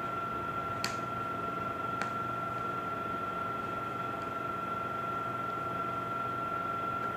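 Steady background hiss with a constant high-pitched whine, and two faint clicks about one and two seconds in.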